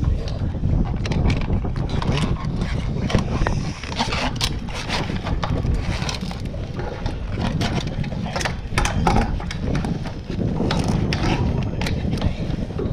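Wind buffeting the microphone with a steady low rumble, over many scattered knocks, clicks and scrapes from handling on a boat deck.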